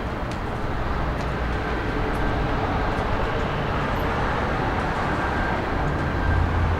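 Steady vehicle and traffic noise: an even rumble with a low hum, no distinct events standing out.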